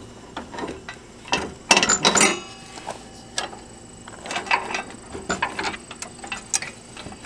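Metal tools working on a garden tractor: irregular clicks and clinks, with a louder cluster of clanks a little under two seconds in, one of which rings briefly, and another run of clicks around four to five seconds in.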